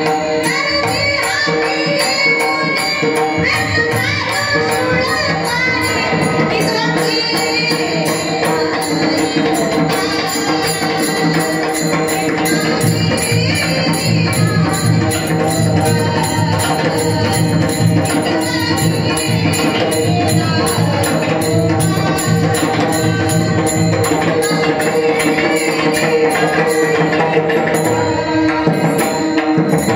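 Kirtan devotional music: singing over a steady, quick jingling percussion beat, which thins out near the end.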